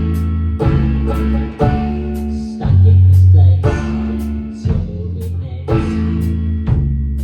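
A band playing a blues-rock song: guitar and bass guitar over a drum kit keeping a steady beat.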